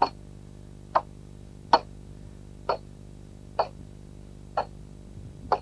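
A tool striking a wooden pole again and again as its bark is stripped off, seven sharp strikes about one a second, each ringing briefly.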